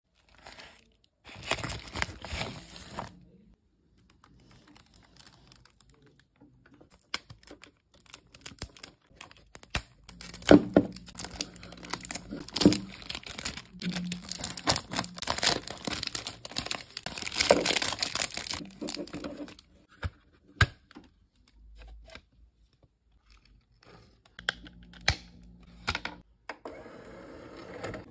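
Clear cellophane shrink-wrap being torn and crinkled off a plastic CD jewel case, in bursts, the longest through the middle, with scattered clicks and taps of the plastic case being handled.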